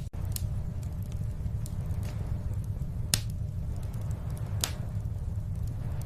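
Wood fire in a fireplace burning with a low steady rumble and scattered sharp crackling pops, the loudest about three seconds in and again a second and a half later.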